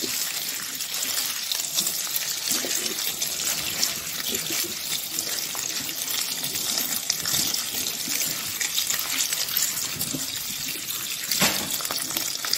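Tap water running steadily onto flattened rice in a stainless-steel mesh strainer while a hand rubs and stirs it to rinse it clean. A brief knock about a second before the end.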